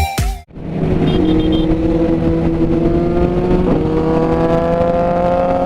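Motorcycle engine pulling steadily under throttle, its note rising slowly, with a brief blip about four seconds in, over a constant rush of wind noise.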